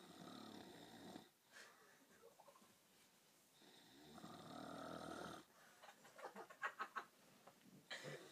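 A sleeping person snoring: two long, buzzing snores about three seconds apart, then a quick string of short, sharp catches in the breath about six seconds in.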